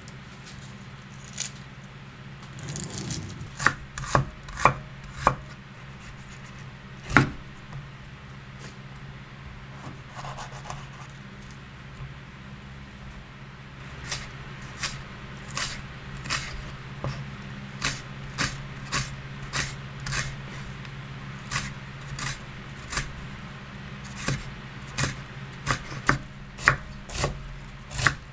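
Chef's knife chopping bell pepper and cabbage on a wooden cutting board. A few scattered knife strikes come first, then steady chopping at about two strokes a second from halfway on. A low steady hum runs underneath.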